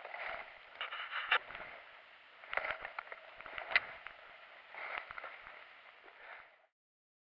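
Footsteps crunching and rustling through dry fallen leaves in uneven bursts, with a few sharp clicks and snaps. The sound cuts off suddenly shortly before the end.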